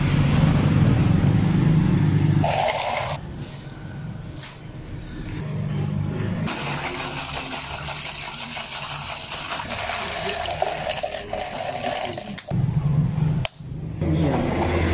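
Espresso poured over ice in a large plastic cup, then stirred with a straw. Under it runs a low engine hum, loudest at the start, back briefly twice, and again near the end.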